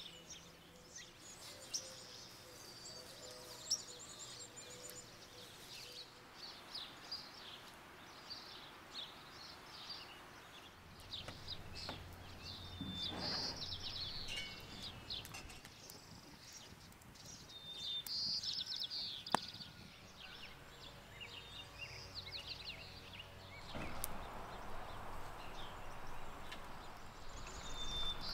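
Small birds chirping and twittering over a soft, steady outdoor background hiss, with a few brief sharp ticks.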